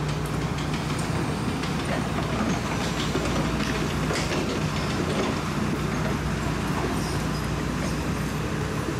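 Caterpillar excavator's diesel engine running with a steady low hum, with a few faint clicks over it.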